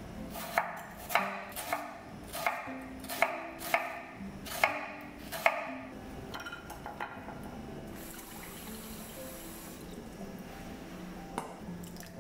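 Kitchen work sounds: a run of about nine sharp knocks at an uneven pace, each with a short ring, then a few fainter knocks and a soft hiss for about two seconds.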